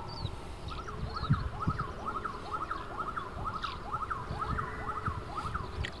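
Ruddy shelduck calling: a quick series of short, rising-and-falling notes, about three a second, over a low rumble.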